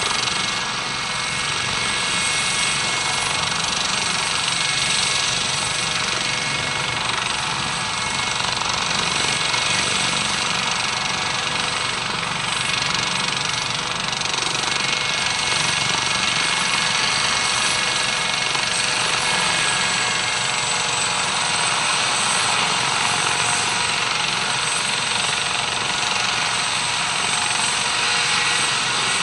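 Twin-turbine Eurocopter AS565 K2 Panther helicopter running: a steady high turbine whine over the noise of the rotors.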